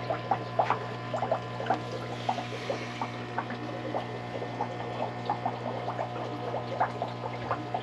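Aquarium filter bubbling: quick, irregular little bubble pops and trickles over a steady low hum from the running filter or air pump.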